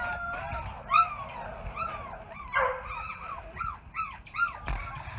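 Black Labrador puppies yelping and whining as they wrestle: a string of short, high-pitched yips, two or three a second, opening with a drawn-out whine and with one rougher, noisier yelp about halfway through.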